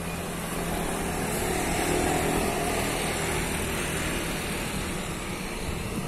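Road traffic passing close by: a container semi-trailer truck's diesel engine and tyres, with a motor scooter and a car going past. The sound swells to its loudest about two seconds in, then eases off.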